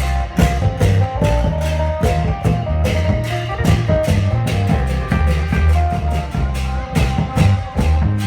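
Isan klong yao long-drum band playing: drums and cymbals keep a steady beat under a bass line and a plucked-string melody.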